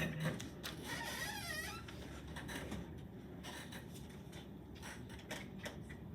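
Classroom background noise: scattered small clicks and rustles, with a brief wavering squeak about a second in.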